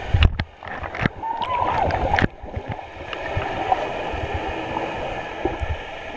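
Muffled water noise heard through a GoPro held under the surface of a swimming pool as swimmers move past it. It drops off abruptly about two seconds in, then carries on steadily.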